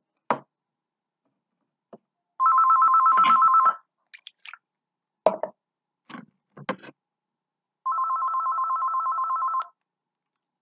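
Telephone ringing twice, an electronic ring that warbles rapidly between two tones, each ring lasting about a second and a half, the second a little quieter. A few short clicks and knocks fall before, between and after the rings.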